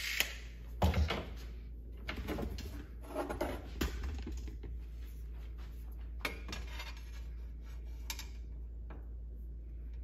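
Scattered knocks and metallic clinks of a flat 1/8-inch steel strap being handled and set into a bench vise, busiest in the first few seconds, then a few lone clicks.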